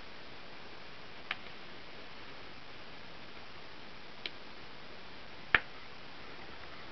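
Three small sharp clicks from hands working the romper on a silicone baby doll, the loudest about five and a half seconds in, over a steady hiss.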